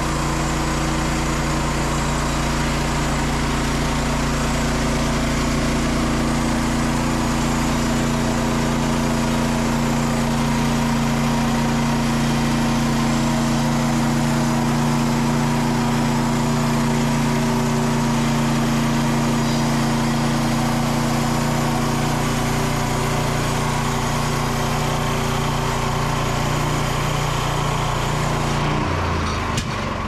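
Frontier OS27 bandsaw mill's small petrol engine running steadily at speed as its band blade cuts through a spruce log. About a second before the end the engine note drops and the high hiss falls away.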